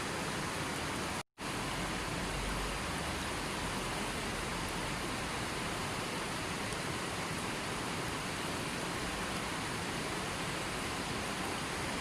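River water flowing with a steady rushing sound, cutting out to silence for a split second about a second in.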